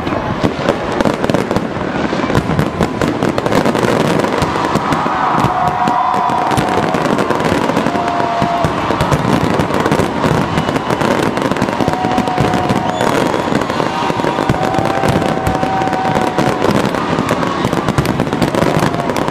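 Fireworks and firecrackers going off densely and without a break: a continuous mass of sharp pops and crackling.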